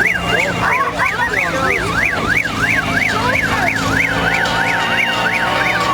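Yelp-style siren, its pitch sweeping rapidly up and down about three times a second without a break, over a steady low hum.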